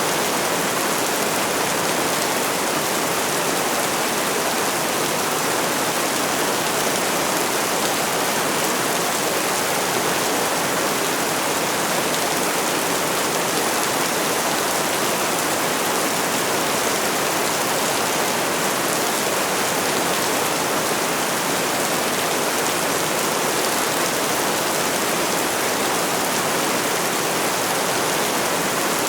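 Steady rain falling, an even hiss that does not let up or change.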